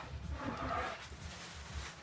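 Water sloshing and splashing in a kitchen sink as freshly pulled carrots are rubbed clean by hand, loudest in the first second.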